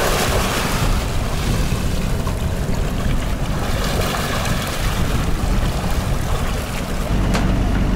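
Strong wind buffeting the microphone over breaking, whitecapped waves rushing past a sailing yacht in a rough, confused sea. About seven seconds in this gives way to a steady low drone of the yacht's engine heard from below deck.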